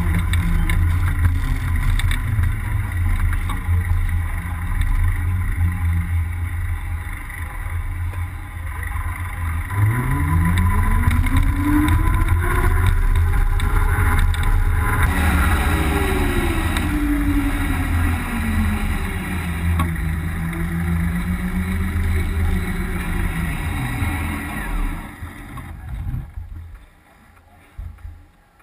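Zero S ZF9 electric motorcycle's motor whining up and down in pitch as the bike speeds up and slows, twice, under a heavy low rumble of wind and road noise on the bike-mounted microphone. The whine and rumble die away near the end as the bike rolls to a stop.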